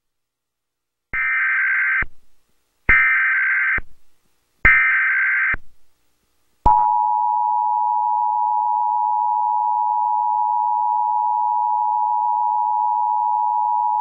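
Emergency Alert System alert tones: three separate bursts of the SAME digital header, each about a second long, then, about halfway through, the EAS two-tone attention signal starts and holds steady.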